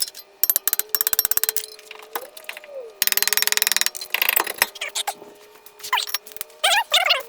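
Ratchet wrench clicking in quick runs, with scattered metal clinks of tools against the car's brake and hub parts.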